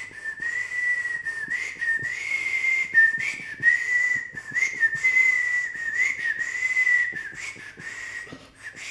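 Someone whistling one high, steady note that wavers and steps slightly up and down, like a slow near-monotone tune, with light clicking and rustling underneath.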